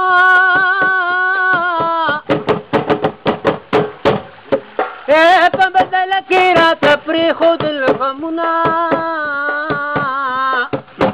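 A man singing a folk song in long held notes, with quick rhythmic hand-percussion taps under and between the phrases.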